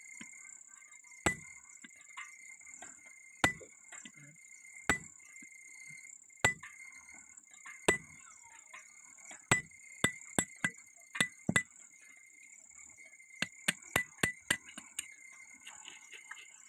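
Blacksmith's hammer striking metal on an anvil in sharp, ringing blows. Single blows come about every second and a half, then quicker runs of several blows from about halfway through.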